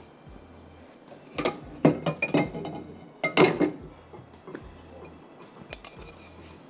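Kitchenware clattering and clinking, pots and dishes being handled on a counter. There are two short bursts of knocks and clinks about a second and a half apart, then a few lighter clinks near the end.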